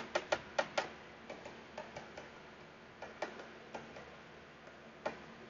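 Ink pad tapped repeatedly against a rubber stamp to re-ink it: a run of quick, faint pats, about five a second at first, then slowing to scattered taps.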